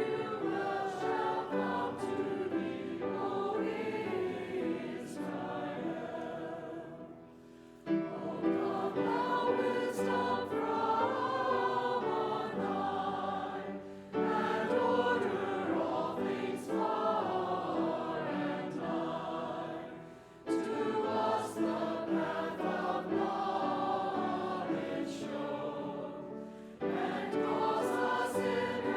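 A choir singing a hymn in phrases of about six seconds, each separated by a brief breath-pause.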